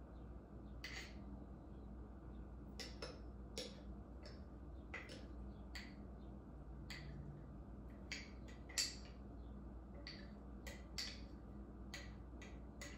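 Spoon scraping and tapping in a jar of sticky sourdough starter as it is scooped into a bowl: a string of short clicks and scrapes, the sharpest about nine seconds in.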